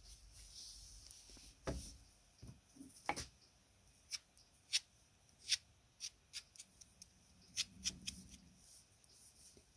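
A scattered series of small sharp clicks and light taps, about a dozen, with a few duller knocks in the first few seconds: small hard objects or tools being handled by hand.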